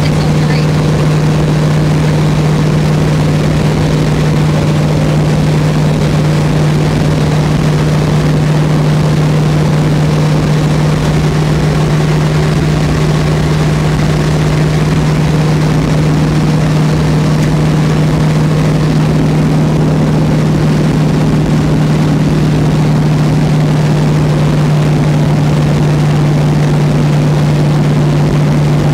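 Turbocharged LS V8 in a Diamond T truck cruising at a steady 2300 rpm in fourth gear at highway speed. It is a loud, even engine drone heard inside the cab, over road and wind noise.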